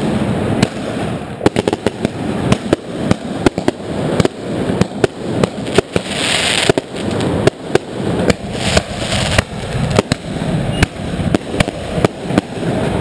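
Fireworks going off all around: a dense run of sharp bangs and firecracker cracks over constant crackling, with the high hiss of a ground fountain at times, loudest about six seconds in.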